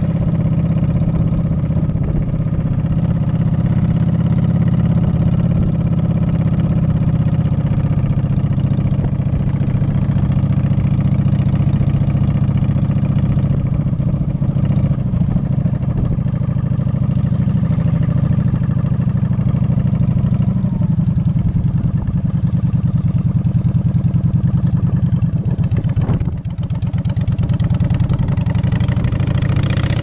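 Cruiser motorcycle engine running steadily at low road speed, heard from on the bike. It drops briefly about three-quarters of the way through, then picks up again.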